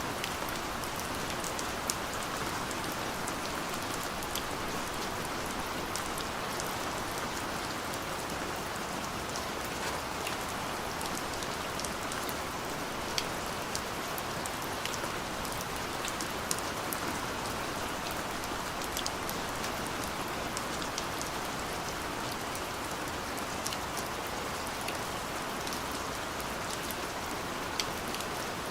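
Steady light rain falling, a constant hiss with scattered individual drops ticking on a surface.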